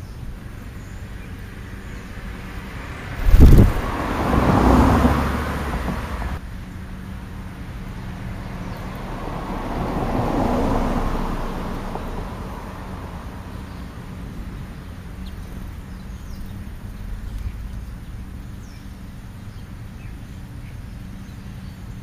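Road traffic passing behind the grass: two vehicles go by, one about four to six seconds in and another around ten seconds, each rising and fading, over a steady low background hum. A loud, short, low thump comes about three and a half seconds in.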